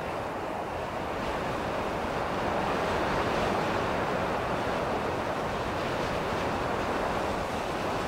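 Strong, gusty wind blowing steadily, with a gust swelling about two to three seconds in and easing slightly after.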